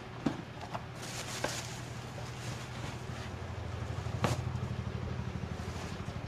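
Sneakers and tissue paper handled in a cardboard shoebox: rustling and soft knocks, with one sharp knock a little past four seconds in. A steady low motor hum runs underneath.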